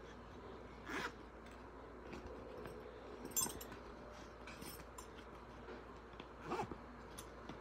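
Crochet hook and yarn being handled and worked: faint rustling with three short scratchy sounds, the loudest about midway.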